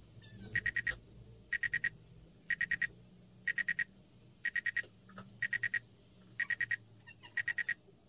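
iSecus G300 WiFi alarm panel beeping its entry-delay countdown after a door contact sensor is opened while armed: quick bursts of four high beeps, about one burst a second. It is the 30-second countdown before the alarm sounds.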